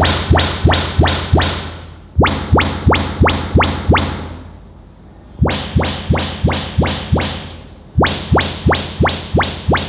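Harman Kardon Enchant 1300 soundbar playing its AMC room-calibration test signal while it measures the room. The signal is quick upward chirps, about three a second, in runs of about six with a short pause between runs, repeating four times.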